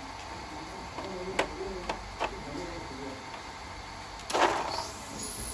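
Metal rhinestone hairpins clicking as they are handled in a wooden rack: three sharp clicks in the first couple of seconds, then a louder clatter about four seconds in. Faint voices are in the background.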